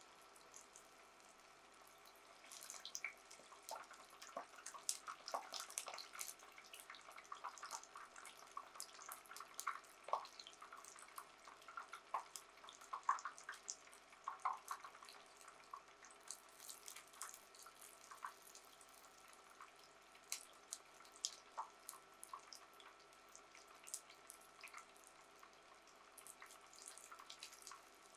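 Tofu coated in flour and aonori deep-frying in oil kept at a low temperature (about 160 °C). Bubbling oil gives faint, irregular crackles and pops, busiest in the first half and thinning out later.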